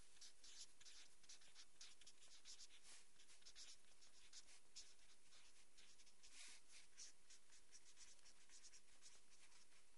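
Felt-tip marker writing on paper: faint, irregular short scratching strokes as letters are drawn.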